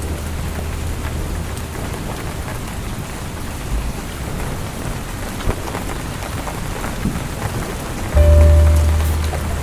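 Steady rain pattering on a window, with scattered drop ticks and a low rumble underneath. About eight seconds in, a soft musical chord with a deep low note comes in.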